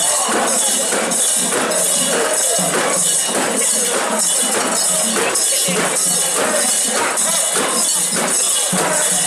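Japanese festival procession sound: rhythmic jingling, metallic percussion at about two beats a second, over dense festival music.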